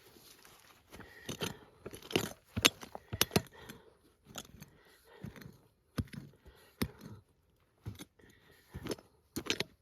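A metal digging tool working through rocky soil: irregular scrapes with sharp clinks and knocks as it strikes stones.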